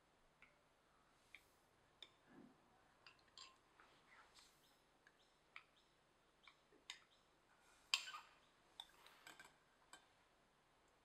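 Faint, scattered clicks and taps of a plastic spoon against a glass bowl and a stainless steel mesh strainer as a starchy liquid is stirred and poured through the strainer into a pot. The loudest is a sharp clink about eight seconds in.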